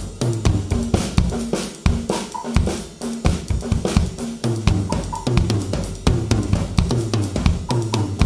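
Acoustic drum kit played solo: fast stick patterns around the toms and snare in odd groupings (5/16 and 7/16) over a repeating 3/8 ostinato played with the feet on the bass drum, with cymbal hits. The kit is picked up by a Yamaha EAD10 mounted on the bass drum.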